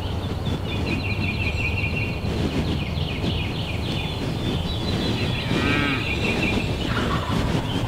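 A wild turkey gobbler gobbling some way off, a rapid rattling call, over a steady low background rumble.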